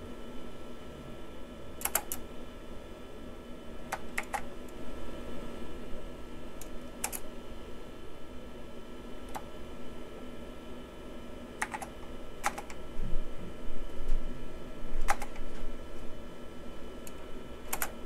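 Vintage Nan Tan Computing mechanical-switch keyboard: a handful of separate key presses, each a sharp click, spaced a second or more apart, over a steady low hum.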